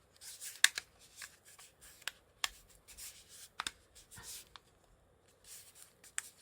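Back cover of a Sony Xperia 1 V smartphone being fitted and pressed into place by hand: a series of sharp, light clicks and taps with soft rubbing and handling noise between them.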